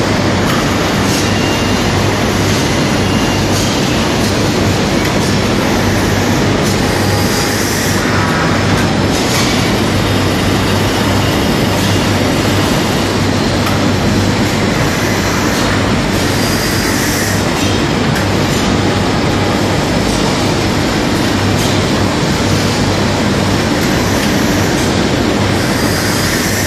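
Industrial slab-cutting machine running steadily: a loud, continuous mechanical noise over a constant low hum, with a few brief high hissing swells.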